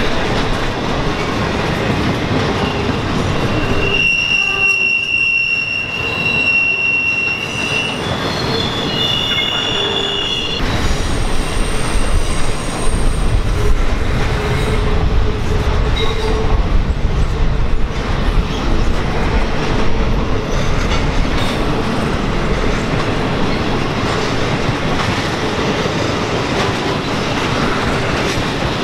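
Norfolk Southern intermodal freight train rolling past with a steady, loud rolling noise of wheels on rail. From about four seconds in, high-pitched wheel squeal sounds, jumping between a few pitches and dying away after about nine seconds.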